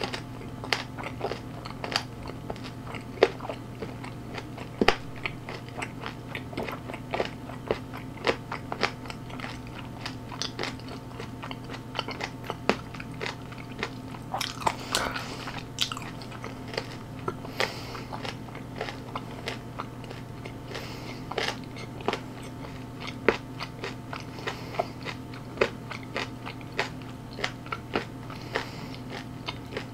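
Close-miked eating: a mouth chewing crunchy food, with sharp crunches every second or so and a denser run of them around the middle, over a steady low hum.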